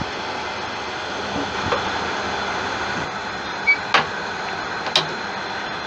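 A turning tool making a pull cut across a large tiger wood piece spinning on a Laguna 1836 wood lathe. The cut and the running lathe make a steady hiss, with a few sharp ticks in the second half.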